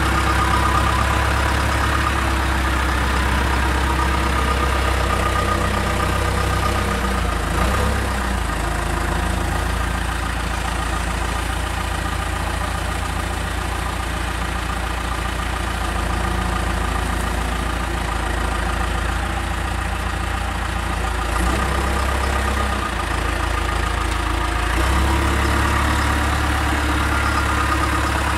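Backhoe loader's diesel engine running steadily, its low hum shifting a few times.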